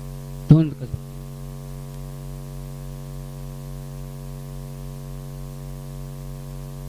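Steady electrical mains hum with a stack of evenly spaced overtones on the commentary audio feed, with a short spoken word about half a second in.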